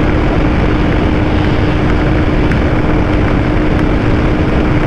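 Royal Enfield Shotgun 650's parallel-twin engine held at steady high revs near top speed, with a constant engine tone under heavy wind rush on the rider's camera microphone.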